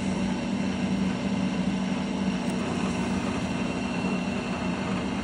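Grizzly G9729 mini lathe running fast under power, with a steady hum from its motor and gear train as the leadscrew feeds the carriage toward the chuck on a threading pass.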